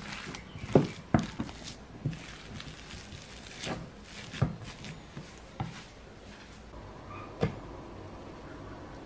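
A utensil mashing and stirring egg and sweet potato salad in a white ceramic bowl, with soft squelches and irregular knocks against the bowl. The knocks come several a second at first, then thin out, with one louder knock about seven and a half seconds in.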